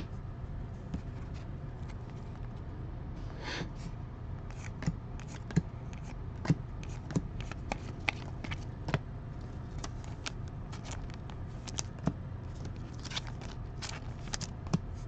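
Trading cards being handled and flipped through by hand: scattered light clicks and rustles as the cards are slid and moved, over a steady low hum.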